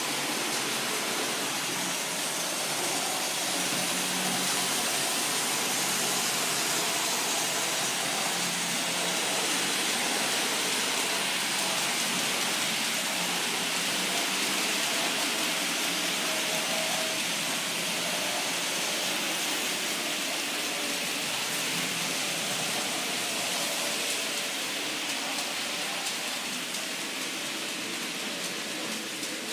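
Model freight train rolling along the layout's track: a steady hiss of many wagon wheels on the metal rails with a faint hum from the locomotives' electric motors, easing off a little near the end.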